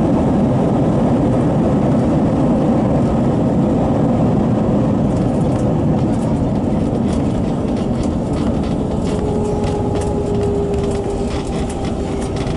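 Airbus A321 cabin during landing rollout: a loud rumble of engines and wheels on the runway that slowly eases as the jet slows with its spoilers up. Light cabin rattles come in about halfway through, and a steady whine comes in about two-thirds of the way in.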